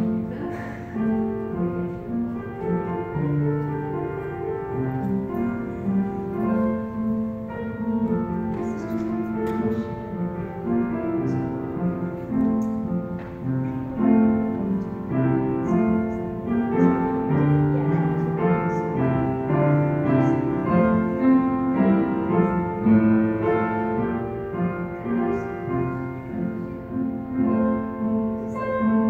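Piano music: a classical-style piece of held, overlapping notes played continuously.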